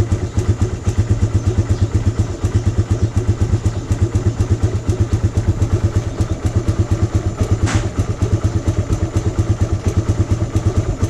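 Suzuki Raider 150's single-cylinder four-stroke engine idling steadily on its own just after a cold kickstart, with no choke and no throttle. It holds its idle because the carburettor's mixture screw has been opened half a turn to richen the mixture for cold weather.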